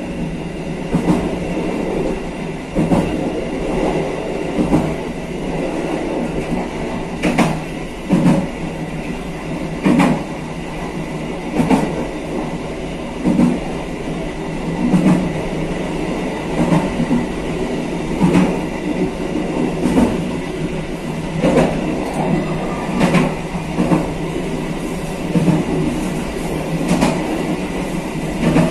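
Kaligung passenger train running along the track: a steady rumble with its wheels clicking over rail joints, a short knock or pair of knocks about every one and a half to two seconds.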